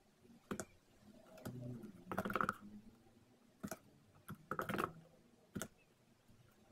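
Faint computer keyboard typing: a few short bursts of key clicks with pauses between, as names are typed one after another with Enter pressed between them.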